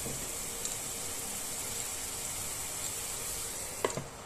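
Onion paste sizzling steadily in hot ghee in a frying pan. Near the end a glass lid clinks down onto the pan once.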